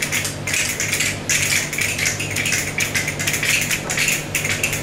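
A small hand-held clapper-type percussion instrument played with a rapid, uneven clicking rattle, its parts snapped together again and again.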